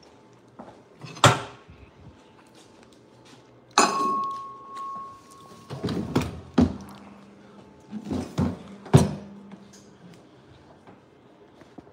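Kitchen equipment being moved and set down on a wooden counter: several heavy thunks and knocks, one of them followed by a short steady ring about four seconds in, and a low hum for a few seconds in the second half.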